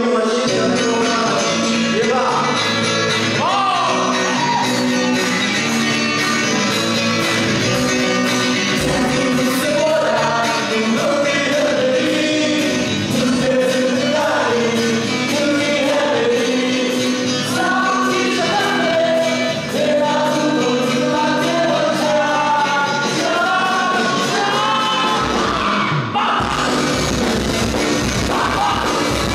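Live band with a male lead singer singing into a handheld microphone over electric guitars. Near the end the band comes in fuller, with more bass.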